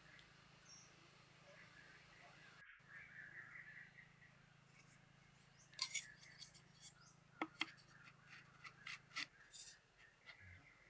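Short, sharp clicks and knocks of green bamboo being handled, as a bamboo stick is fitted into a hole cut in a bamboo tube: about a dozen in a cluster through the second half, over a faint quiet background.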